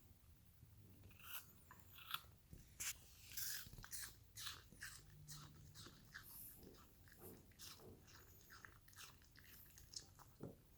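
A Pomsky dog biting and chewing a slice of apple: a run of irregular wet crunches, thickest in the first few seconds and thinning out later.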